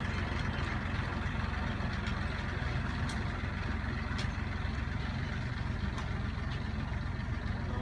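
Tractor engine running steadily at a constant speed, with a few faint clicks over the low rumble.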